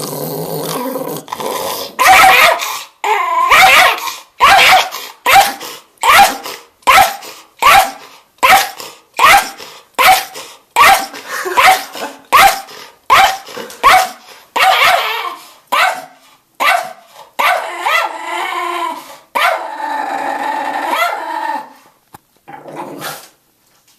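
A schnauzer growling, then breaking into a long run of short snarling barks about two a second, then settling into longer growls near the end: an angry warning at a hand reaching toward him.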